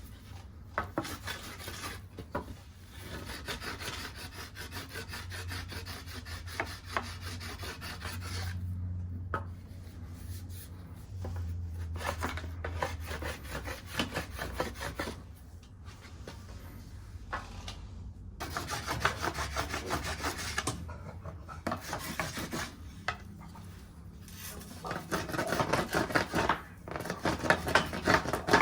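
Cedar bark peelings rubbed briskly back and forth on a deer shed antler in runs of fast, dry, scratchy strokes with short pauses, staining the bleached antler back to a natural colour.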